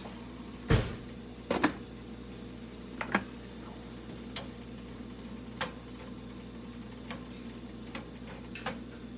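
A lid set on a saucepan with one loud clank about a second in, then scattered light clicks and taps of a cooking utensil against the pans, over a steady low hum.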